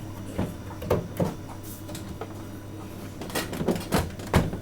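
Hard objects being handled on a workbench: a series of short, sharp knocks and clicks, three in the first second or so and four more in the second half.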